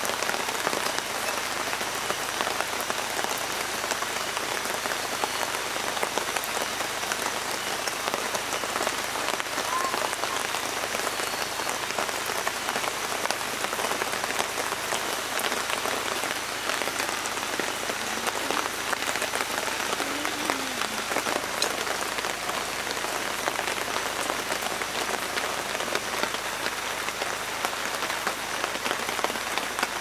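Heavy rain falling steadily, a dense, even patter of countless drops.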